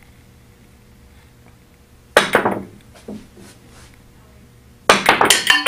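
Pool balls clacking on a billiard table: a sharp cue strike about two seconds in, a lighter click a second later, then near the end a rapid clatter of clicks as the balls hit each other and the triangle racks.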